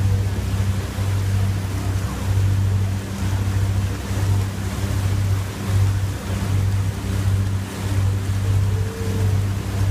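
Motorboat engine running steadily at cruising speed, a low drone that swells and dips about once a second, over the rush of water churning along the hull.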